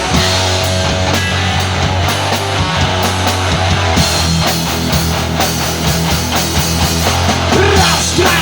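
Rock band playing an instrumental passage: electric guitars and bass over a steady drum beat.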